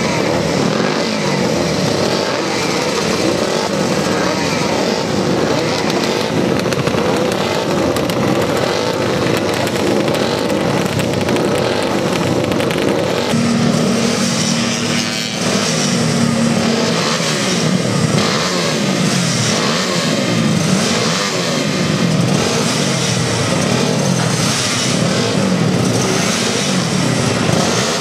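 Several classic racing motorcycle engines running together and being revved, their overlapping revs rising and falling. About halfway through, one engine holds a steady note for a few seconds.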